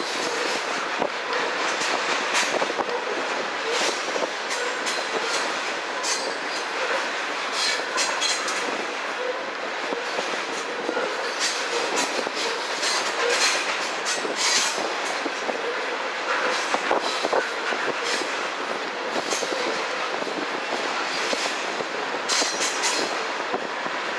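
Freight train of covered hopper cars rolling past, its steel wheels making a steady rolling noise broken by irregular clicks as they cross rail joints.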